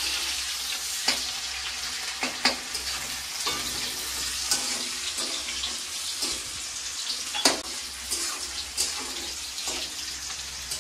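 Sliced onions sizzling in hot oil in a metal kadhai, a steady hiss with scattered crackles and clicks as the pan is stirred; one sharp knock comes about seven and a half seconds in.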